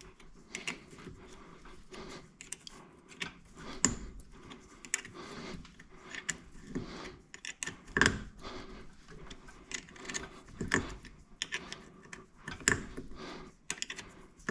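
Irregular small metal clicks and clanks of a hand tool tightening worm-drive hose clamps on a fuel hose, with a few louder knocks.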